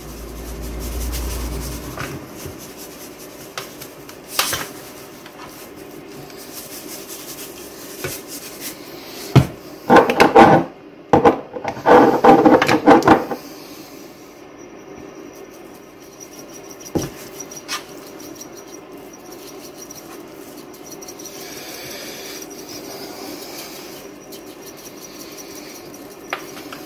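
Seasoning being shaken and ground over a raw pork roast in a metal roasting pan: soft rubbing and shaking with a few light clicks, and two loud grinding bursts about ten and twelve seconds in.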